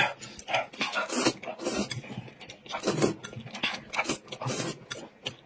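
Close-up eating sounds: noisy slurping and chewing of food eaten with chopsticks, in quick irregular bursts.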